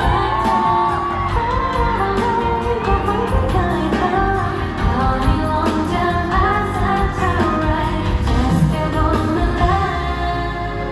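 Female vocals singing a Thai pop song live over an amplified backing track, with a steady beat.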